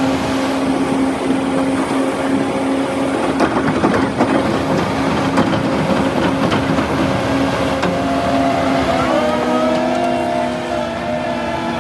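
A heavy construction machine's engine running steadily, with some clattering a few seconds in and the engine note rising slightly about nine seconds in.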